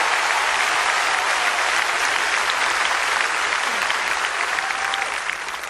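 A large theatre audience applauding steadily, the applause dying down near the end.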